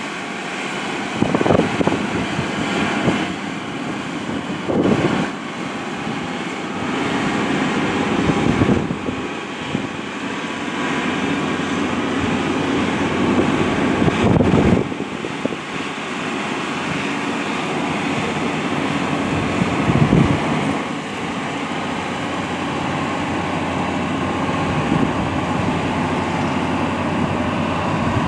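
Dredging barge's diesel engine running under way, a steady drone that grows slightly louder as the vessel passes close. Gusts of wind buffet the microphone half a dozen times.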